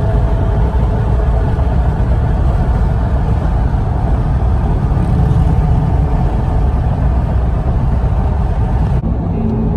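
Steady road noise inside a car cabin at freeway speed: a low tyre and engine rumble with no let-up. The sound changes abruptly near the end.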